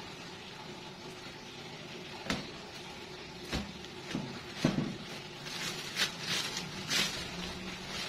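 Scattered knocks and rustling as a black plastic bag is pulled about around an old metal oven on a tiled floor, over a steady low hum. The knocks and rustling grow busier in the second half.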